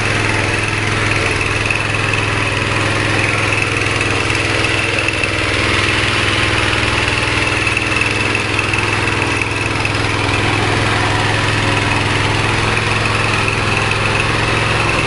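Small 5.5 hp petrol engine running steadily, driving a horizontal pellet-making machine.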